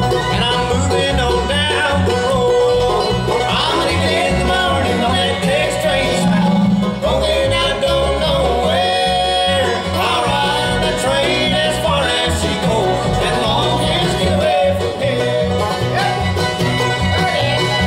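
Live bluegrass band playing a song: fiddle, banjo, mandolin, acoustic guitar and upright bass together at a steady tempo.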